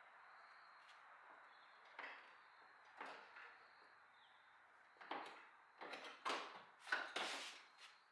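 Knocks and scrapes of a car's radiator support and radiator assembly being rocked and worked loose by hand: two single knocks early on, then a run of louder scrapes and bumps over the last three seconds.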